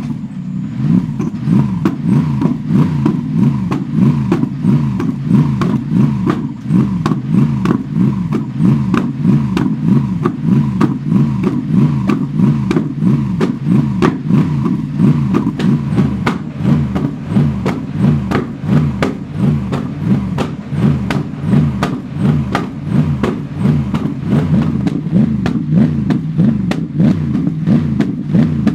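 Mercedes-AMG GT3 Evo race engine, a 6.2-litre naturally aspirated V8, warming up while heard close to its side-exit exhaust. Its revs rise and fall over and over, about three times every two seconds, with sharp cracks from the exhaust.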